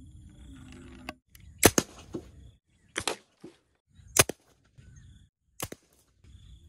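Four sharp cracks, about a second to a second and a half apart, the first and third the loudest, with a low rumble between them that cuts out to silence in places.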